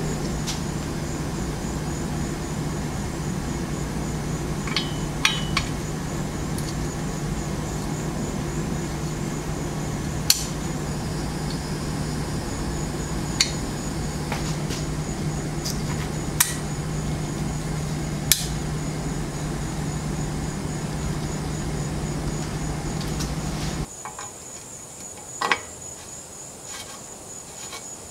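Light metallic clicks and taps from hand tools on bicycle parts, a few seconds apart, over a steady machine hum. The hum cuts off about four-fifths of the way through, leaving a quieter background with a few more clicks.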